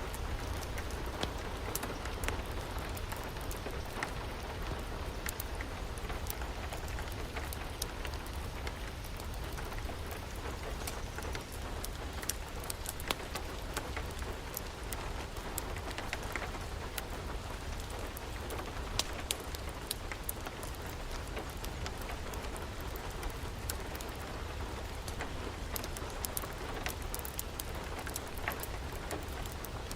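Steady rain falling, with frequent scattered sharp crackles and pops of a wood fire over a low rumble.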